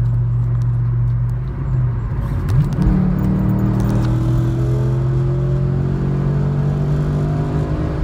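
2012 Camaro SS V8 engine and road noise heard from inside the cabin while driving. About two and a half seconds in the engine pitch sweeps up, then keeps climbing slowly as the car accelerates.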